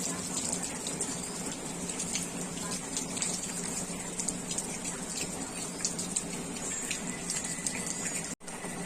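Heavy rain pouring down with water running and splashing, full of the patter of drops, over a steady low hum. The sound cuts out for an instant near the end.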